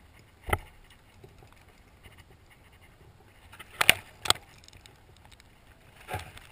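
Sharp knocks and clicks from a spinning rod and reel being handled close to the microphone: one about half a second in, a louder double knock near four seconds in, and a softer one near the end.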